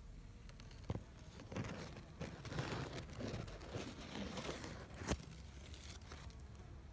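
Large squash leaves rustling and brushing against the phone in an uneven series of crinkling scrapes, with a sharp knock about a second in and another about five seconds in.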